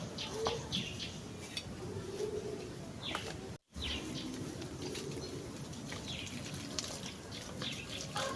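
Faint, scattered chirps of small birds over a quiet background hiss, broken by a brief total dropout a little past three seconds in.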